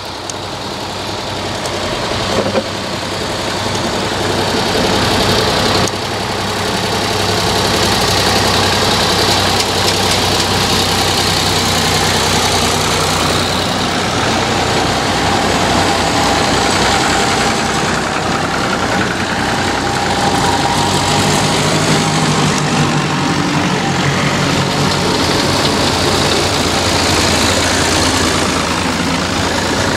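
Vintage tractor engines running as a procession of tractors drives past one after another. The sound builds over the first few seconds and then holds steady.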